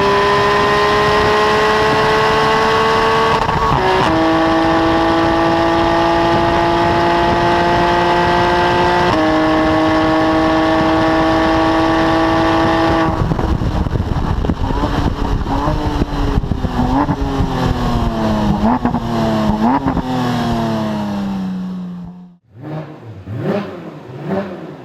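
Porsche 991 GT3's naturally aspirated flat-six heard at the exhaust tips at full throttle, its note rising steadily through the gears with two quick upshifts. About halfway through it brakes hard, and the note steps down through a series of downshifts with throttle blips. Near the end the sound drops away, then comes back with a few short revs.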